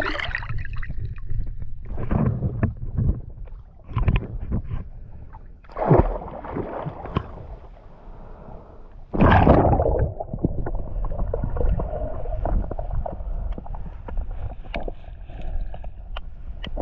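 Water splashing and sloshing around a swimming spearfisher, in irregular surges with the loudest about six and nine seconds in. The camera then goes under the surface, where a steady hiss with many small clicks takes over.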